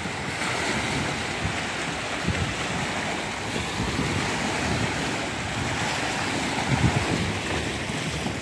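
Sea waves washing, with wind gusting on the microphone as a low rumble, strongest about two and seven seconds in.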